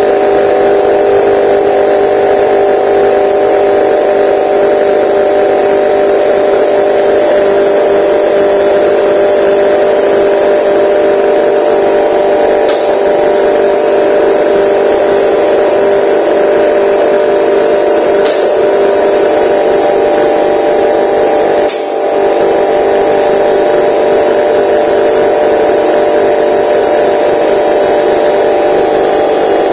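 Air compressor motor running steadily with a constant hum, feeding an air hose to a nail gun. Three faint sharp clicks come through in the middle.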